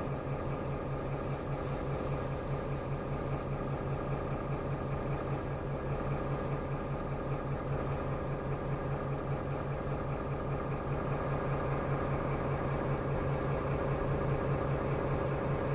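City bus engine running steadily, heard from inside the passenger cabin as a constant low, pulsing hum that grows a little louder near the end.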